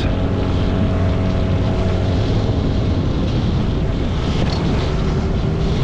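Boat engine running steadily under way, with wind rushing over the microphone; the engine's steady hum grows weaker about halfway through.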